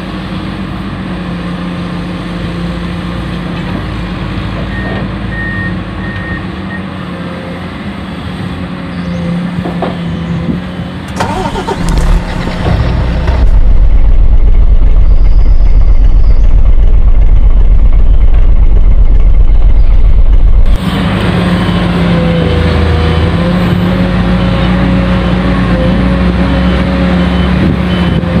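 Motors of an RC excavator running steadily with a constant hum. About halfway through, a much louder low rumble takes over for about seven seconds, then cuts off suddenly.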